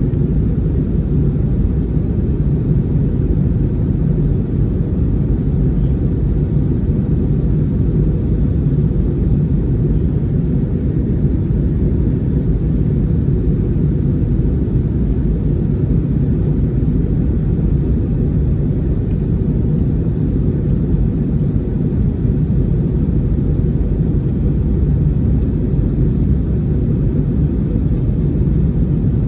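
Airbus A321neo cabin noise: a steady, loud, low rumble of the jet engines and airflow heard from inside the passenger cabin.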